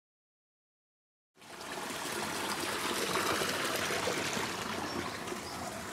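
About a second and a half of silence, then the steady rushing of flowing water fades in and carries on evenly.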